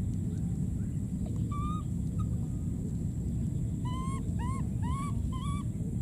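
Baby macaques calling with short, high squeaks: one about a second and a half in, then four quick rising squeaks in a row near the end, over a steady low rumble.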